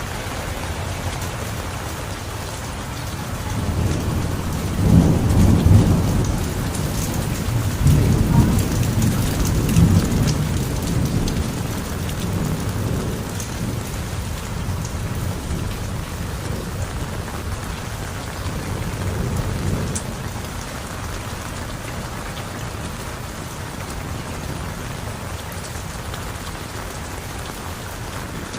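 Heavy rain falling steadily, with a long roll of thunder that swells a few seconds in, rumbles loudest for several seconds, then fades away.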